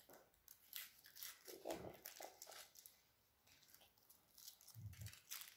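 Faint crinkling and tearing of Kinder Surprise egg foil wrappers being peeled off by hand, in scattered small crackles, with a soft low thump near the end.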